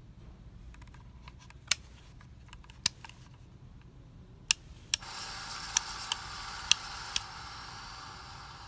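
Casablanca Spirit of Saturn ceiling fan with worn-out motor bearings: a run of sharp clicks, then about five seconds in a steady high grinding hiss from the bad bearings sets in, with a few more clicks over it, and slowly eases off.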